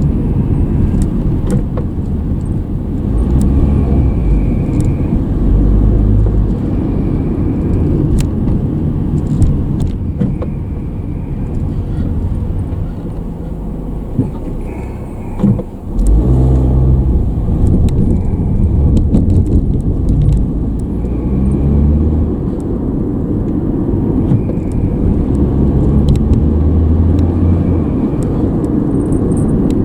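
A car's engine and road noise from inside the moving car, the engine note rising several times as it accelerates.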